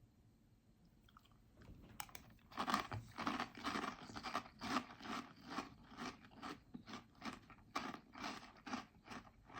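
A mouthful of crunchy chocolate breakfast cereal being chewed, with evenly spaced crunches about three a second starting about two and a half seconds in.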